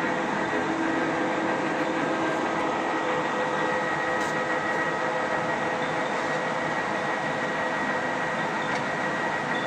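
Geminis GE1200N big-swing lathe running with its spindle turning forward: a steady mechanical drone from the headstock gearing, with a few constant whining tones over it.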